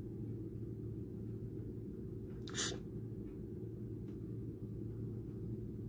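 Steady low background hum, with one short breath noise about two and a half seconds in.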